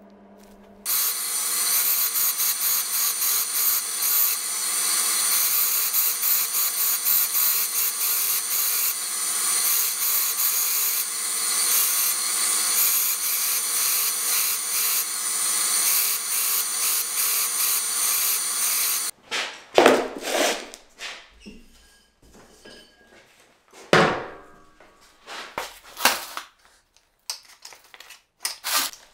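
TR Maker belt grinder running with a steel hammer head held against the abrasive belt: a steady, rough grinding noise that starts about a second in and stops abruptly past the halfway point. After that come several sharp clatters and clinks as abrasive discs are handled in a plastic tray.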